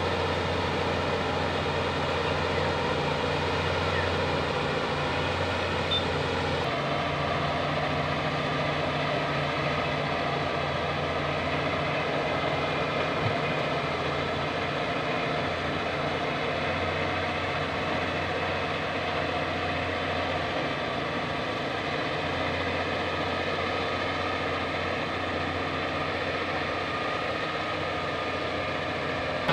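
Bulldozer's diesel engine running steadily under work, a continuous low drone with an even note.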